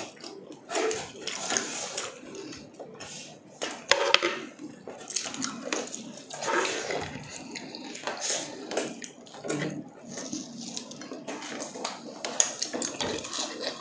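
Eating sounds of crispy fried chicken: crunching bites and wet chewing, with forks clinking against dishes now and then.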